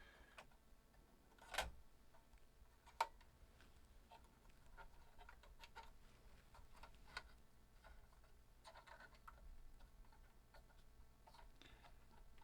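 Near silence with faint scratching and scattered light clicks from hand cleaning of a Commodore 1541-II floppy drive's head rails. Two sharper clicks come about a second and a half and three seconds in.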